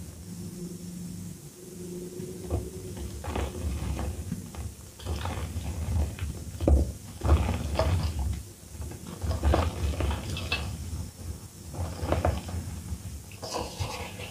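Hands crushing and crumbling soft reformed gym chalk blocks into loose chalk powder: irregular soft crunches and crumbles over dull low thuds, with the sharpest cracks about seven seconds in.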